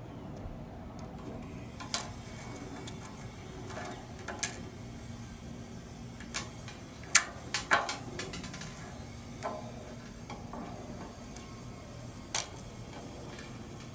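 Scattered small clicks and ticks of BBs being loaded into an airsoft gun, coming irregularly a second or more apart.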